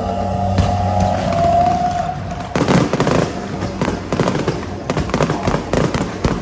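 A low droning musical note, then from about two and a half seconds in, fireworks going off in quick bangs and dense crackling.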